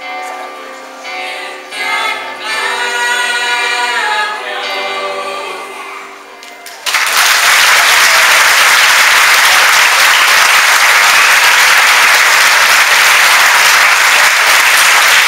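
The closing bars of a sung duet over backing music fade out. About seven seconds in, an audience suddenly breaks into loud, steady applause.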